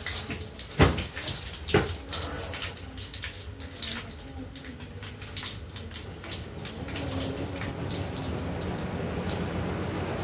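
Kitchen handling sounds: two sharp knocks about a second apart near the start, then light clinks and clatter of dishes and utensils over a steady watery hiss that grows louder in the last few seconds.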